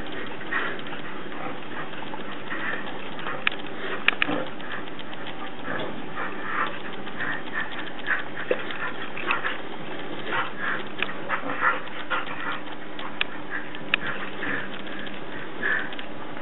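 A dog tugging and mouthing a knotted rope toy, making short irregular noises over and over, with a few sharp clicks.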